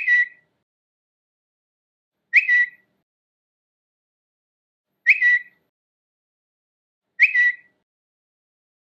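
Twitter notification sound: a short, high two-part chirp, played four times at about two-and-a-half-second intervals with silence between.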